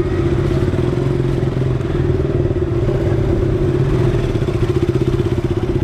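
KTM RC motorcycle's single-cylinder engine idling steadily.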